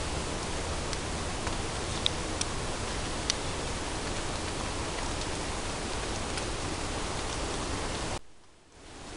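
Steady even hiss with a few faint ticks. The hiss cuts out sharply about eight seconds in, then fades back up.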